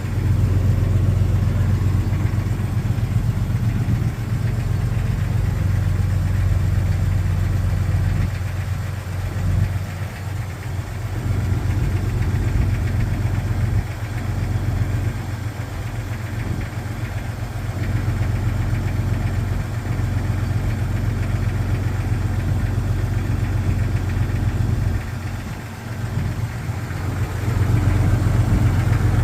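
1999 Jeep XJ Cherokee engine idling cold, with a knocking slap typical of piston slap on a cold start. The running note grows quieter a couple of times and is loudest again near the end.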